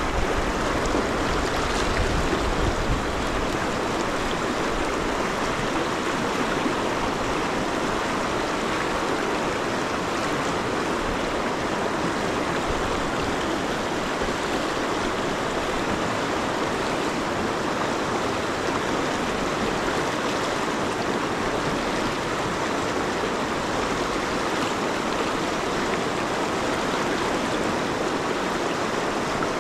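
Shallow river rapids rushing steadily, a constant roar of fast water.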